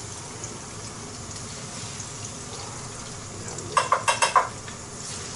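Oil sizzling steadily in a kazan as mushrooms fry, with about five quick metallic clinks of a utensil against the cookware about four seconds in.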